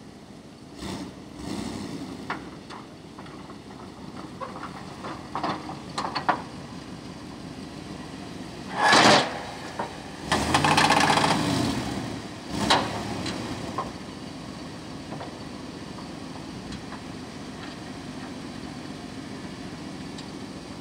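Ford F350's 7.5-litre gasoline V8 running low and steady as the plow truck creeps forward, with scattered clicks in the first few seconds and a few short, loud bursts of noise around the middle.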